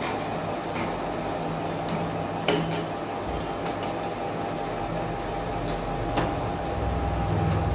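A window being opened by hand: a few light clicks and knocks from its latch and frame over a steady low hum.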